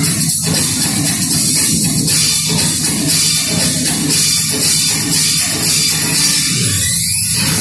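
Loud dance music with drums and a steady beat.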